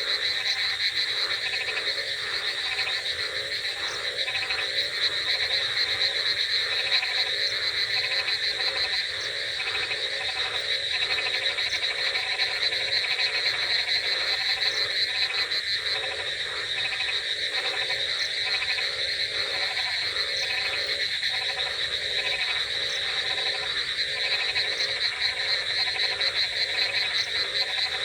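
A dense chorus of frogs croaking without pause: many overlapping, rapidly pulsed calls with a steady high-pitched trill running over them.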